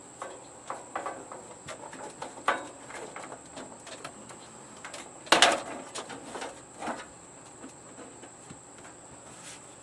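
Handling noise from the TV's plastic casing being moved about: scattered clicks, rustles and knocks, with one loud clack about five seconds in.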